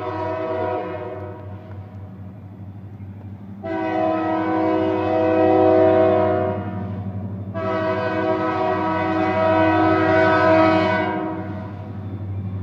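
Toledo, Peoria & Western locomotive 5010's air horn sounding two long blasts of about three to four seconds each, after the tail of an earlier blast fades in the first second or so. Under it runs the steady low rumble of the approaching diesel locomotive.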